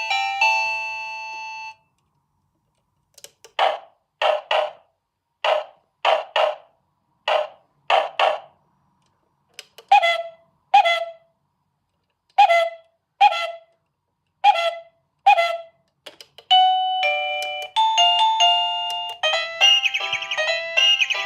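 Electronic doorbell working through its built-in chimes. A tune of ringing notes ends, and after a short pause comes a run of brief sounds, mostly in pairs. Another chime melody begins about 16 seconds in.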